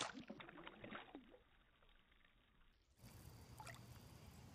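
Water splashing at a pond surface as a caught fish is let go by hand, then gurgling and dripping that fade within about a second and a half. A faint, steady outdoor background follows.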